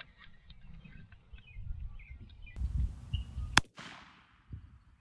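A single shot from a Rossi Tuffy Turkey .410 shotgun firing a 9.5 TSS turkey load, about three and a half seconds in, a sharp crack with a short fading echo. Faint short chirps come before it.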